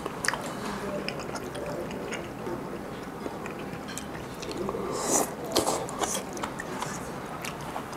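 A person chewing food close to the microphone, with small wet mouth clicks and a cluster of sharper clicks about five to six seconds in.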